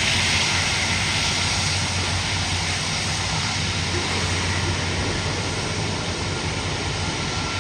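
Boeing 747 freighter's jet engines running, a steady broad rushing noise with a low hum underneath, slowly easing off a little.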